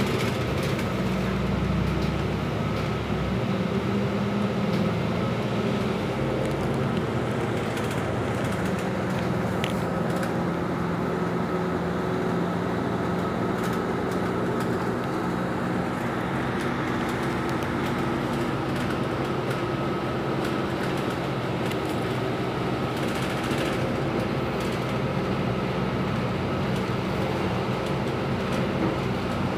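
Steady drone of a city bus's engine and road noise, heard from inside the passenger cabin while the bus drives along at speed.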